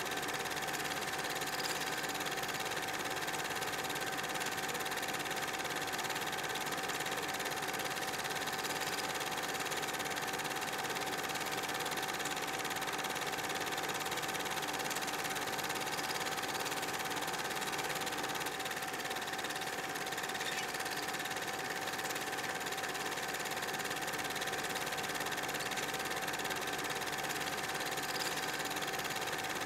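8 mm film projector running steadily: an even mechanical whir with a constant tone over hiss.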